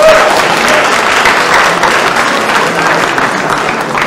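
Spectators applauding in a hall, a dense, steady clapping with a brief shout near the start, easing off slightly toward the end.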